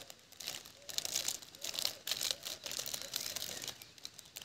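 Thin clear plastic bag crinkling and rustling as it is pulled off a small hand magnifier, a run of crackly rustles that dies away near the end.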